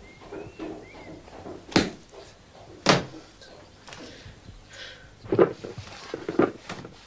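A short creak, then a door shutting with a sharp knock, a second knock about a second later, and a few more thumps and bumps near the end.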